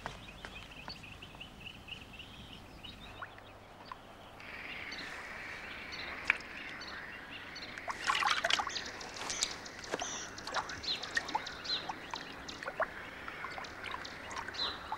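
Quiet water trickling, with scattered drips and small splashes from about eight seconds in.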